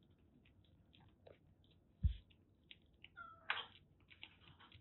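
Kitten eating wet food from a metal dish: faint chewing and smacking clicks, a dull knock about two seconds in, and a short mew a little after three seconds.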